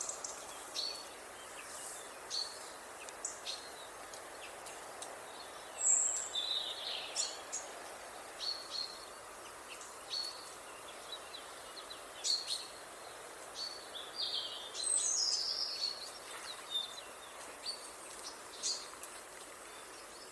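Common chaffinch singing: quick runs of notes falling in pitch about 6 seconds in and again around 15 seconds, with scattered short high chirps between them, over a steady background hiss.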